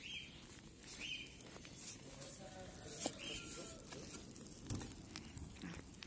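Faint footsteps of flip-flops on dry, gritty dirt, with light scattered pattering and scuffs.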